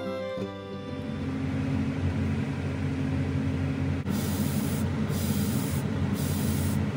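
Airbrush spraying paint in three short hissing bursts, each under a second, starting about four seconds in. Under them runs a steady low hum, with a fading bit of violin music at the start.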